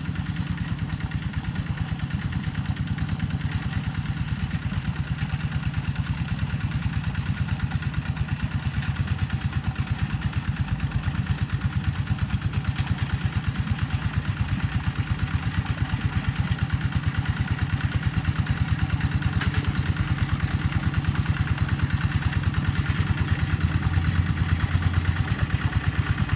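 Kubota single-cylinder diesel engine of a two-wheel hand tractor running steadily with a rapid, even knocking beat while plowing a rice paddy, growing slightly louder toward the end.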